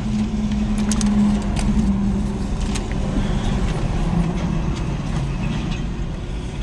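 Truck engine idling, a steady low hum, with a few faint clicks and crinkles as the foil food container is handled.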